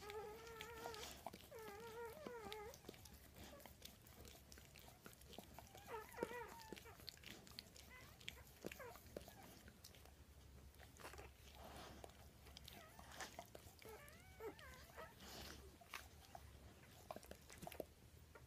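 Newborn Weimaraner puppies squeaking and whining in short, wavering, high-pitched cries, in three bouts: at the start, around six seconds in and around fourteen seconds in. Between them come faint wet clicks and smacking from the puppies nursing.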